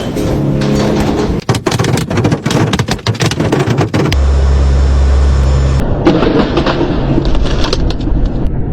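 Storm wind roaring and buffeting the microphone, with crackling gusts and a heavy low rumble. The sound changes abruptly several times as short clips are cut together.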